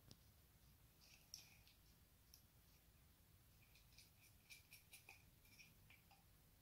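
Faint small clicks and light scraping of tiny standoffs and nuts being turned by hand onto a small speaker: a few scattered ticks, then a quicker run of them over the second half.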